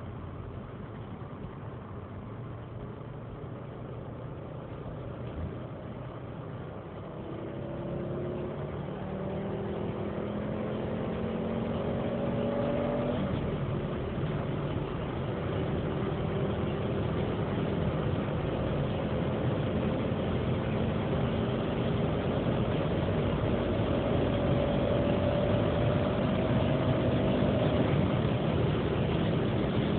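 Volvo 850 R's turbocharged five-cylinder engine under hard acceleration, heard inside the cabin. It runs steadily for several seconds, then its pitch climbs until it drops sharply at a gear change from third to fourth about 13 seconds in, and then climbs again more slowly. Wind and road noise grow louder with speed.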